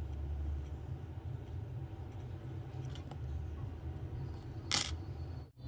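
Steady low hum, with a few faint ticks and one short, sharp noise near the end.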